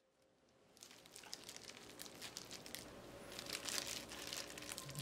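Faint crinkling and squishing of a plastic-gloved hand pressing and shaping a mound of hijiki and mashed-tofu salad on a plate, starting about a second in as a dense run of fine crackles.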